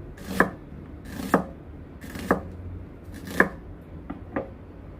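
Kitchen knife slicing an onion thinly on a chopping board: slow, even strokes about once a second, each a short crunch through the onion ending in a sharp knock on the board, with two lighter quick strokes near the end.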